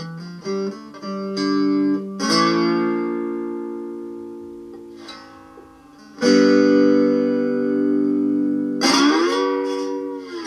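Homemade cigar-box-style guitar with a pine body, a tin-plate resonator top and a piezo pickup, played slowly. A few short plucked notes come first, then chords that are left to ring out and fade, the last one bending up and back down in pitch.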